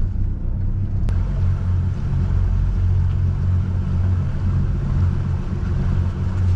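Twin outboard motors of an aluminium cabin boat running under way at a steady speed, a low even drone. A single short click about a second in.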